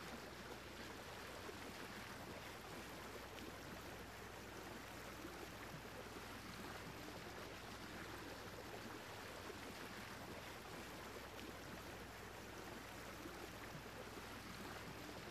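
Faint, steady ambient noise: a soft even hiss like distant water, with a low hum underneath.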